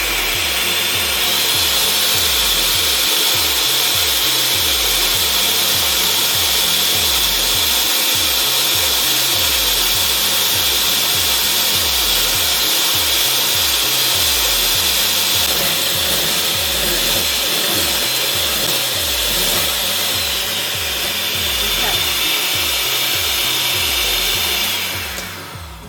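Electric kitchen mixer running steadily at speed, beating egg whites into meringue, with a high motor whine that dips slightly in pitch about twenty seconds in and then cuts off.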